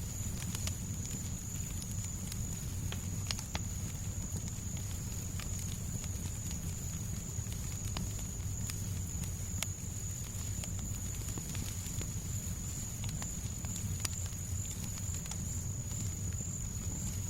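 Fireplace crackling, with scattered sharp pops over a steady low rumble and a thin, steady high-pitched tone.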